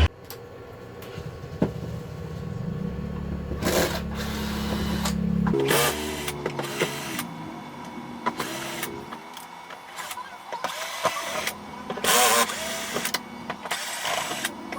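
Cordless electric screwdriver whirring in short runs, backing out screws from the TV's casing, with sharp clicks and knocks from the screws and panel being handled.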